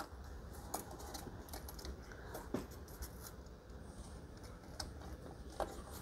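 Faint, irregular clicks and scrapes of a fan's wire mounting clip being worked into the slots of a Hyper 212 tower heatsink's fins, against the fan's plastic frame.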